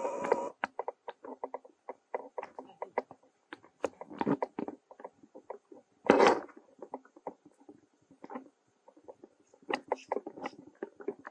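Irregular crackling and rustling of footsteps on dry leaf litter and stone, with one louder scuff about six seconds in.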